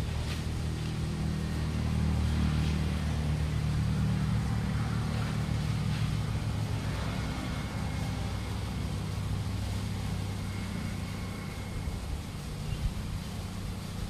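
A steady low engine-like hum, with faint scattered knocks.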